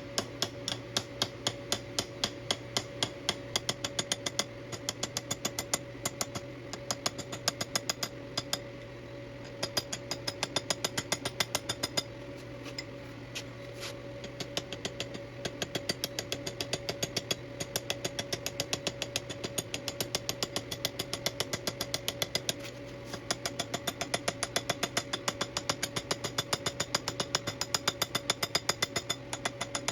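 A hammer lightly and rapidly tapping the edges of a thin-walled metal tube to forge them into a ball, about three sharp metallic taps a second with a few brief pauses, over a steady machine hum.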